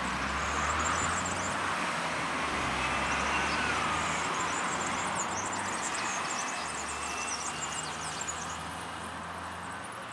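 ZSSK class 671 double-deck electric multiple unit running away along the track: a steady rolling rumble with a faint electric whine gliding up and down, easing slowly over the last few seconds.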